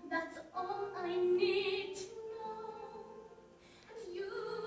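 Live stage-musical singing: a solo voice holding slow, sustained notes over orchestral accompaniment, recorded from the audience.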